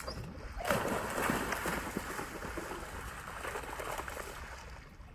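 A dog plunges into a shallow muddy stream less than a second in and splashes through the water. The splashing is loudest at first and dies away gradually over the next few seconds.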